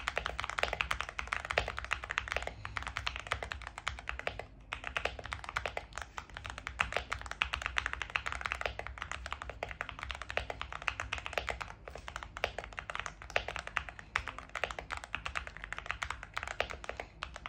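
Typing on a Yunzii AL66 aluminium-case mechanical keyboard with linear milk switches, in stock unmodded form. It is a rapid, continuous clatter of keystrokes, with a brief pause about four and a half seconds in.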